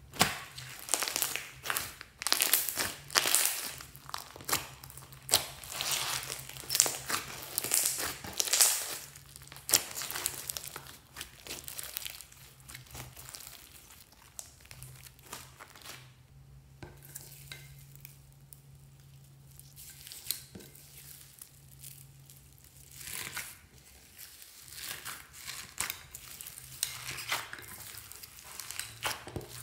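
Slime being squished and stretched by hand, giving runs of sharp crackles and pops. The crackling is dense for the first dozen seconds, thins out through the middle, and picks up again near the end.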